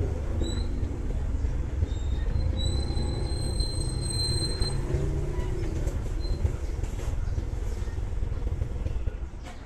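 Small step-through motorbike's engine running under a dense low rumble as it rides slowly. A thin high squeal sounds for about two seconds a few seconds in.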